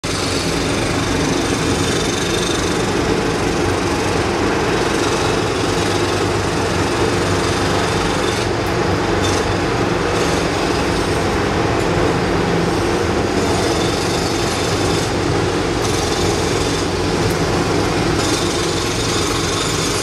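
Several jackhammers hammering at once without a break, loud, breaking up concrete on an elevated parking structure. The sharper, higher clatter drops away for a moment several times in the second half while the low pounding carries on.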